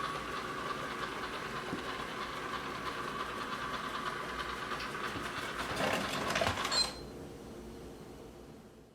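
ILIFE V5s robot vacuum running with a steady motor whine and brush hum. A few louder rattles come around six seconds in, then the sound cuts down sharply at about seven seconds and fades out.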